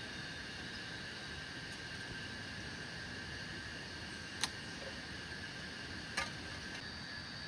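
Steady chorus of forest insects, several high unbroken tones held over a soft background hiss, with two sharp clicks, one just before the middle and one near the end.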